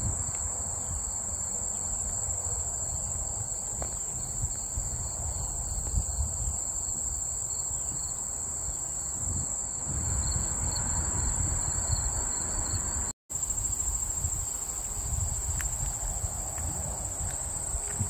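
Steady high-pitched chorus of summer field insects, an unbroken shrill trill, over a low rumble. The sound drops out for an instant about thirteen seconds in.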